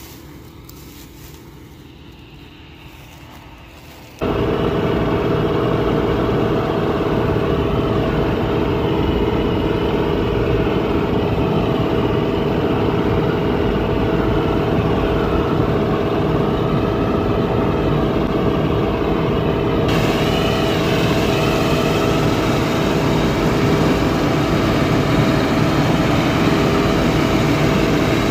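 Claas Dominator 48S combine harvester running at work: a loud, steady engine and machinery drone with a constant whine. The drone comes in suddenly about four seconds in, after a quieter stretch.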